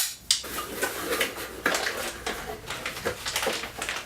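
Parts being lifted out of a cardboard accessory box: irregular clatter, knocks and rustling as pieces are handled.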